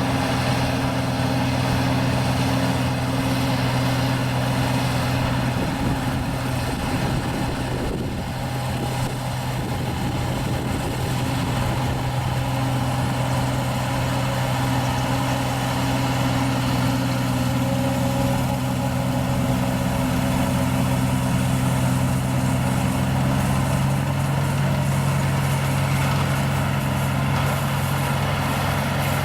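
Iseki rice harvester running steadily at work, an engine drone over dense mechanical noise. The engine note briefly wavers about seven to nine seconds in.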